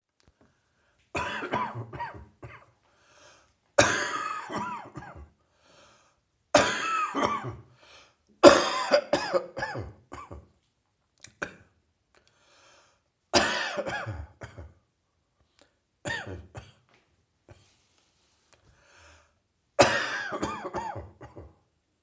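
A person coughing from a chest cold that is easing, in about eight separate fits of several quick coughs each, a few seconds apart.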